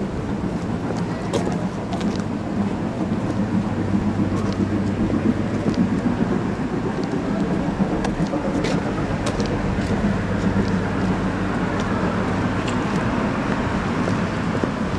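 Steady low engine hum under a rushing noise.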